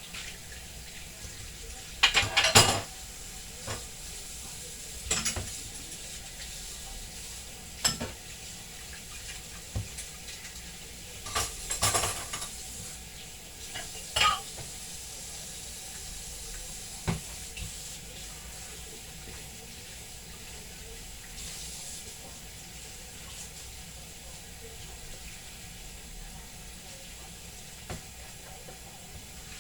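Dishes and cutlery clattering and clinking as they are cleared and washed at a kitchen sink. There are about seven separate knocks and clinks, the loudest about two seconds in, over a steady faint hiss.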